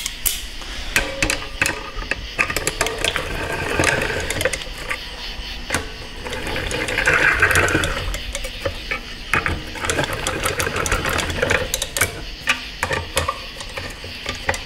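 Hand ratchet clicking in quick runs, with small metal clicks, as the retaining-plate bolts on a 4L60 transmission valve body are tightened by feel to about 100 inch pounds. A louder rasping run comes about seven seconds in.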